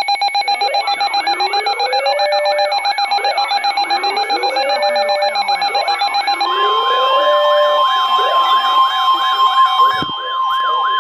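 Emergency alert attention signal announcing a severe thunderstorm warning: layered alarm sounds, with a rapidly pulsing beeping tone, a siren yelping up and down several times a second, and a rising whoop repeating about every two and a half seconds. About six and a half seconds in, a steady high alert tone joins.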